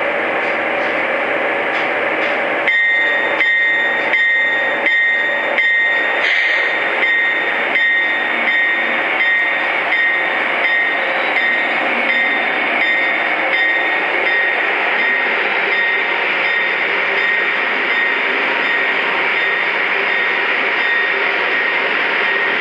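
Lionel Legacy O-gauge diesel locomotives and freight cars rolling along three-rail track. The models' onboard diesel engine sounds play over a steady high whine that comes in a few seconds in, with regular clicks, about one every half second or so, through the first half.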